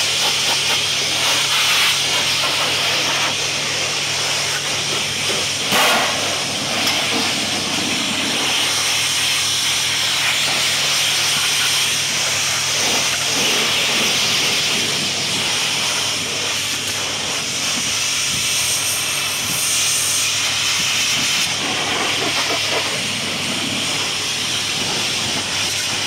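Hot-water steam pressure washer lance spraying a stainless steel table frame to strip thick grease: a loud, steady hiss of the jet, with a low steady hum underneath. There is a brief knock about six seconds in.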